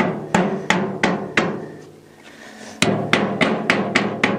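Hammer blows on the steel tube frame of a wheelbarrow: quick, ringing strikes about three a second. They pause for about a second and a half midway, then a faster run follows.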